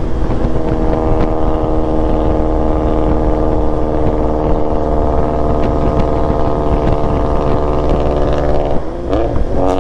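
BMW motorcycle engine running steadily at highway cruise, with wind rush over the bike. Near the end the engine note changes, its pitch sliding briefly up and down, and a single sharp crack sounds just before the end.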